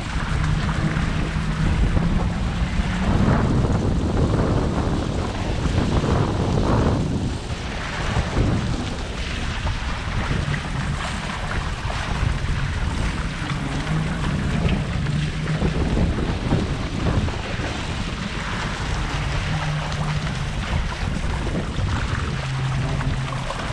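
Wind buffeting the microphone and water rushing and splashing along the hulls of a Hobie 16 catamaran under sail, rising and falling with the gusts, with a low hum that comes and goes several times.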